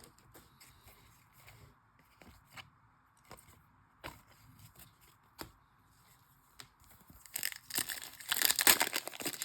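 Faint ticks and rustles of trading cards being handled, then about seven seconds in a louder crinkling and tearing as a foil card-pack wrapper is ripped open.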